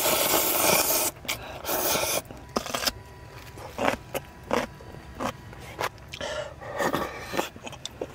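Noodles slurped in long noisy draws, three of them in the first three seconds, then chewing with short smacks and clicks and another slurp.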